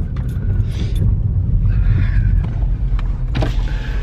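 Steady low rumble inside a car cabin, with a few light knocks and faint, muffled voices.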